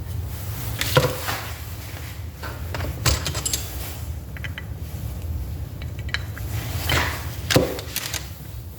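A handful of sharp clinks and knocks of metal tools and distributor parts being picked up and set down on a workbench, about four separate strikes, over a steady low hum.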